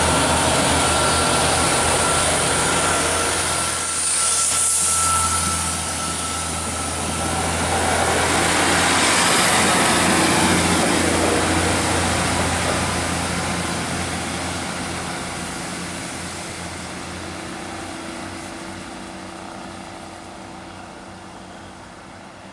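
A diesel multiple-unit train made of Class 150 and Class 153 units, with underfloor Cummins diesel engines, running under power as it pulls away from the platform. It is loud for the first half, then fades steadily as it draws away.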